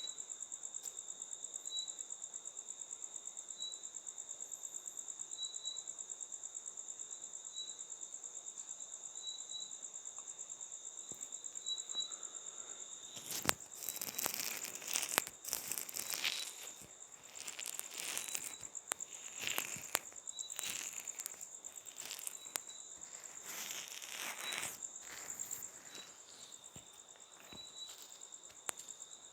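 Steady, rapidly pulsing high-pitched chirring, insect-like, with crinkly scratching and rustling sounds coming in repeatedly from about halfway through.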